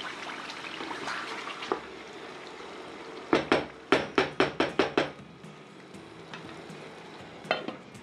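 Wooden spoon stirring a thick tomato stew in a metal pot. Partway through comes a quick run of about eight sharp knocks of the spoon against the pot, and one more knock near the end.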